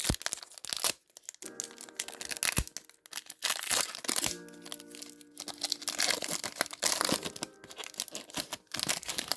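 Pokémon TCG booster pack wrapper being torn open and crinkled as the pack is handled, a run of sharp crackling rustles, over background music.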